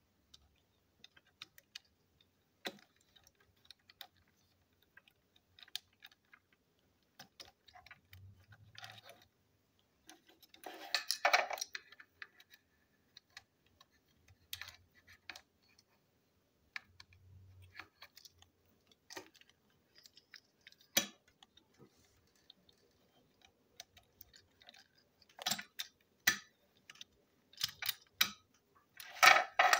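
Small plastic clicks and taps of a battery-powered toy train's plastic chassis, battery and body parts being handled and fitted together, with a cluster of rattling clicks about 11 seconds in and more clicks near the end.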